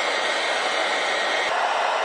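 Electric blower fan forcing air into a charcoal-fired can furnace: a steady, loud rushing of air. About a second and a half in there is a faint tick, and the tone shifts slightly.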